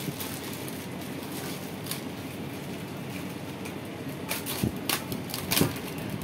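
Clear plastic wrapping rustling as a boxed barcode printer is handled inside it, with a cluster of sharp crinkles and crackles from about four to five and a half seconds in.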